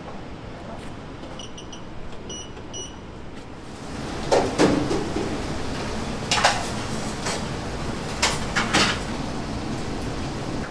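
A run of clattering knocks and scrapes over steady background noise, with faint short beeps in the first few seconds before the clatter starts.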